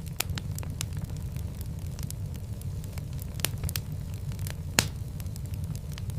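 Wood fire crackling in a fireplace: frequent sharp pops and snaps over a steady low rumble, with one louder pop about three-quarters of the way through.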